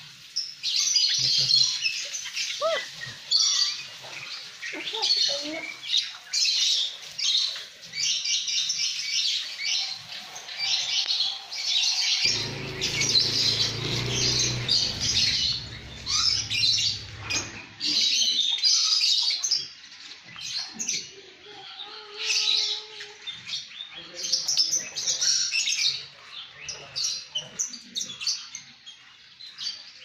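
A flock of lovebirds chattering with rapid, high-pitched chirps and squeaks, almost without pause. About twelve seconds in, a low rumble runs underneath for about five seconds.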